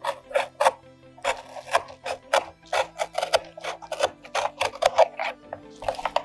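Hobby knife cutting through a cardboard box insert in quick, repeated short scraping strokes.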